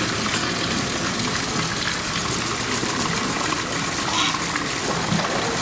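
Steady rush of running water, as in the pool of a polar bear enclosure.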